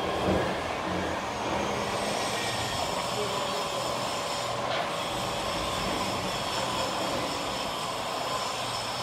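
Steady machinery noise: an even hiss with several constant high tones, running without change.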